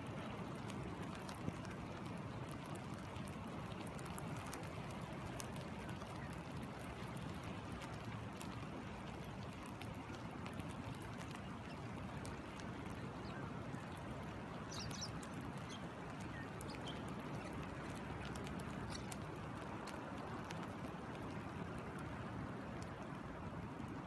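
Steady rush of a stream flowing over rocks, with rain falling and many light raindrop ticks throughout. A bird chirps faintly a few times about halfway through.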